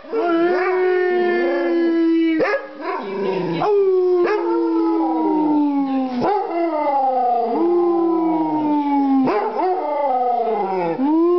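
Basset hound howling: a string of long, drawn-out howls, each a couple of seconds, swooping up at the start and then sliding slowly down in pitch, with short breaks for breath between them.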